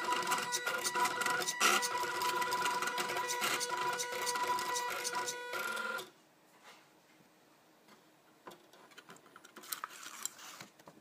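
Stepper motors of a homemade pen plotter built from two salvaged DVD-ROM drive sleds, driven by an Arduino Uno, whining and ticking rapidly as they step the pen across the paper; the motors stop abruptly about six seconds in. A few faint rustles follow near the end.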